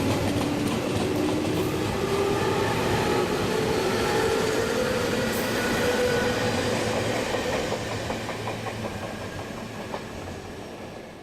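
Tobu Railway electric commuter train running along the track, wheels clacking over rail joints, its motor whine rising steadily in pitch as it picks up speed. The sound fades away over the last few seconds as the train moves off.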